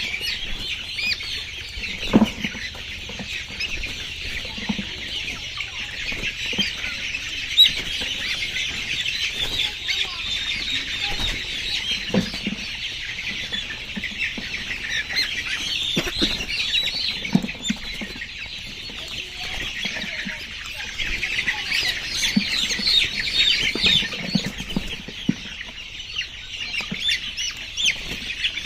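A flock of young layer chickens chirping and peeping continuously, many voices overlapping. Short low thumps come now and then, the sharpest about two seconds and seven and a half seconds in.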